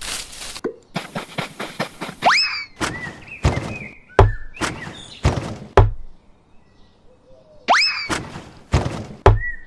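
Comic sound effects: a run of sharp knocks and hollow thunks, some with a heavy low thud, with a quick rising boing-like whistle about two seconds in and another near eight seconds.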